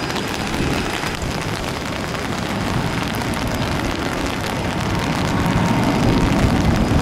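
Steady hiss of heavy rain with the rumble of a jet airliner's engines on its takeoff roll down a wet runway, the rumble growing louder over the last couple of seconds.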